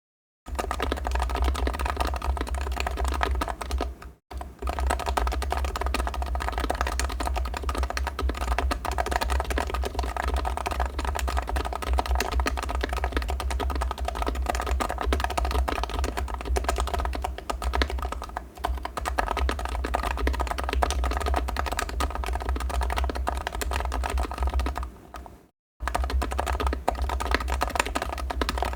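Continuous typing on a custom Taycan keyboard with HHKB Pro 2 rubber domes on a capacitive (Topre-style) PCB, with sliders fitted with silencing rings and lubed housings: a dense run of keystrokes. There are two brief pauses, about four seconds in and again near the end.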